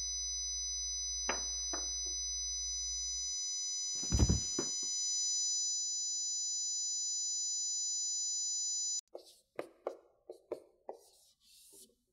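A sound-effect drone: several high, steady tones ringing together over a low hum, with a few soft thumps, cutting off suddenly about nine seconds in. Then comes a quiet run of short taps and scratches from a marker writing on a whiteboard.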